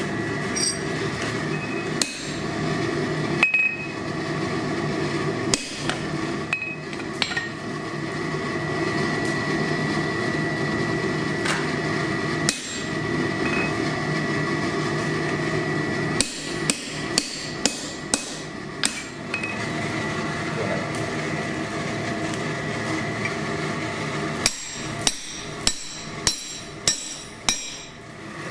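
Blacksmith's hammer striking hot steel on an anvil: scattered single blows, then a quick run of about six strikes around the middle and about eight ringing strikes near the end, over a steady hum.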